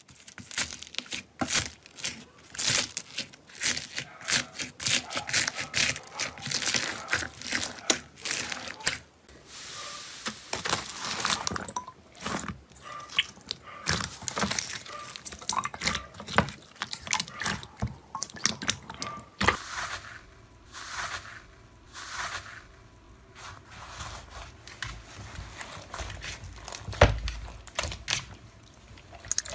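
Slime being pressed, squeezed and poked, giving quick irregular crackles, pops and wet clicks. The sound changes about two-thirds of the way through as a different slime takes over.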